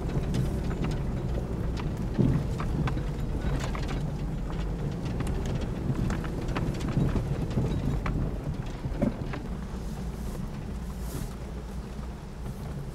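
Jeep's engine running at low speed while the vehicle crawls an off-road trail, a steady low rumble with scattered sharp clicks and knocks throughout.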